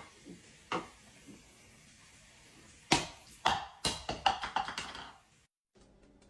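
A single sharp tap, then about two seconds later a quick run of about ten sharp taps and knocks on something hard, some ringing briefly.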